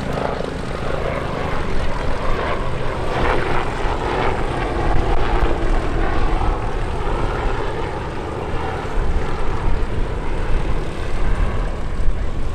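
Westland Lynx helicopter flying past, its rotor and turbine engines making a steady loud rumble that swells and fades a little as it moves.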